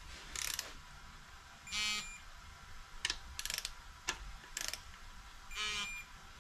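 Electronic torque wrench ratcheting a connecting-rod cap bolt, with short clicking bursts. It gives two brief beeps, about two seconds in and near the end, signalling that the set torque of 20 N·m has been reached.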